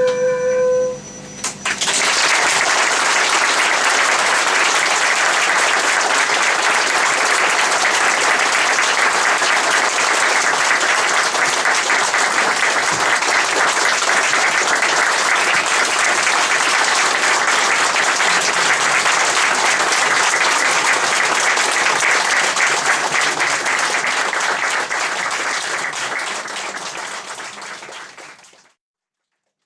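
An instrument's last held note ends, then a small audience applauds steadily. The applause fades out near the end.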